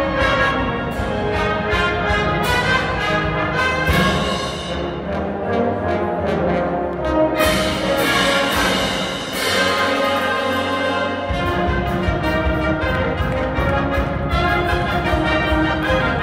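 Military brass band playing: trumpets, trombones, saxophones and tubas together with a steady beat. The bass drops away for a lighter passage about four seconds in, and the full band with its low brass comes back in about eleven seconds in.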